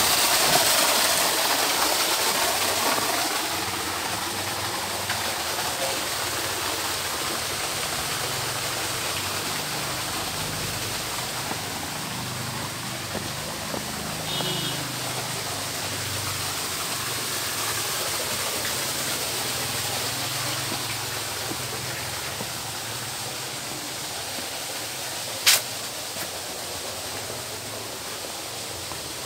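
Steady rushing of running water at a fish pond, growing fainter over the first few seconds and then holding steady. A single sharp click comes near the end.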